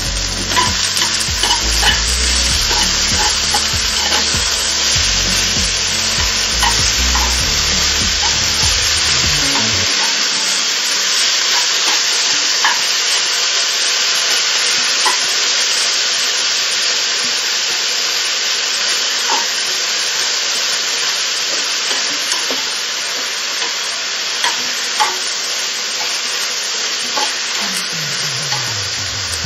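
Beef and broccoli sizzling in a nonstick frying pan as they are stir-fried, a steady frying hiss with scattered light clicks of wooden chopsticks against the pan.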